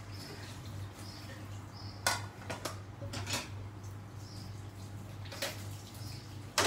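Metal utensil clinking against a plate in several sharp, scattered clinks as fried quail eggs are moved about on it, over a steady low hum.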